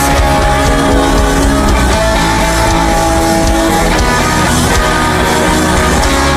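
Gospel worship band playing loud instrumental music with long held notes and no singing.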